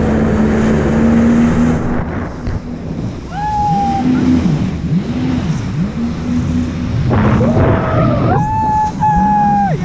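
Jet ski engine running at speed over spray and rushing water, its pitch dipping and rising again and again in the middle as the craft bounces over the waves. A high held tone sounds briefly about three and a half seconds in and again for over a second near the end.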